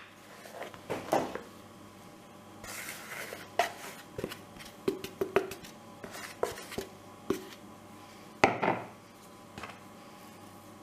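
A fork scraping and tapping against a bowl and a wooden pastry board while crumbly dough is turned out onto the board: a string of light clicks and knocks, with short scrapes, the loudest of them a scrape about eight seconds in.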